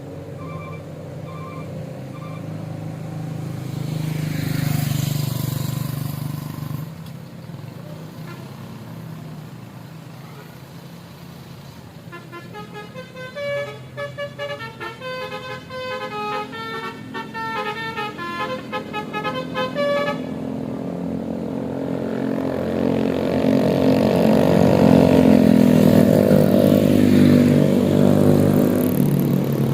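Telolet horn of an ALS bus playing a fast tune of short tooting notes for about eight seconds in the middle, after a few short beeps at the start. A large vehicle's engine and tyres grow loud near the end.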